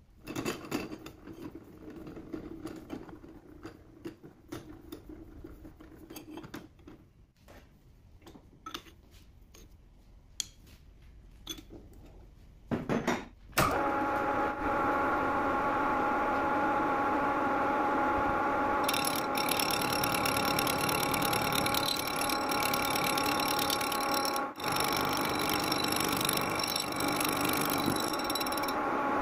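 Scattered metal clicks and knocks from handling and clamping work in a lathe chuck. About halfway through, the metal lathe starts and runs steadily with a whine of several fixed tones. A higher whine joins a few seconds later and fades near the end.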